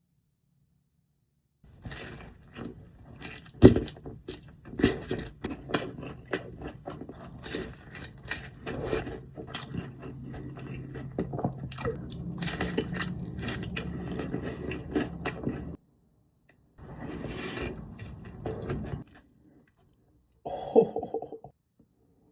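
Close-up eating sounds of crispy fried chicken fingers: crunchy bites and chewing with crackles and clicks, in one long stretch and then two shorter bursts after brief pauses.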